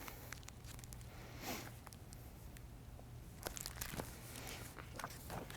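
Faint paper rustles and a few soft taps, typical of a hardcover picture book being picked up and opened, over a low room hum.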